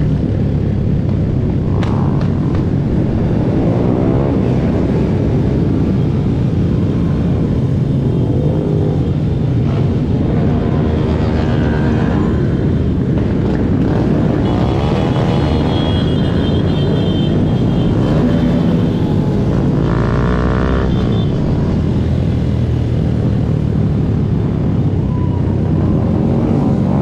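A pack of small-bore motorcycles riding together, their small engines running in a steady, dense drone. Now and then a nearby bike revs, its pitch rising and falling, clearly around the middle and again about two-thirds of the way through.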